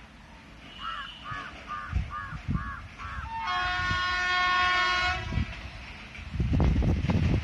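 Electric locomotive (Indian Railways WAP-4) sounding its horn in one long blast of about two seconds as it approaches. After that a low rumble of the oncoming train grows loud near the end.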